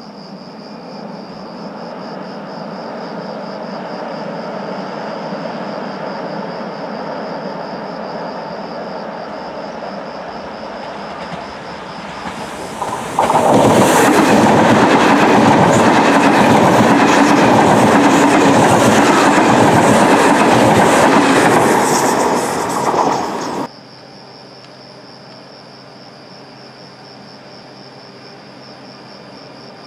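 Frecciargento high-speed train approaching with a rising rumble, then passing close at speed for about ten seconds, its wheels clattering in a quick steady rhythm. The sound cuts off suddenly after the pass.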